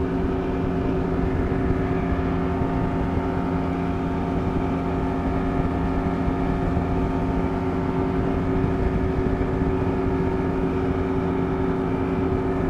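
Two-stroke outboard motor running steadily at about 3,000 RPM, pushing a bass boat at about 27 mph, with wind rushing over the lapel microphone.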